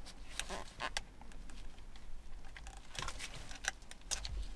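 Scattered small plastic clicks and rustles of an electrical plug being wiggled and slid out of its connector on the back of a steering-wheel airbag.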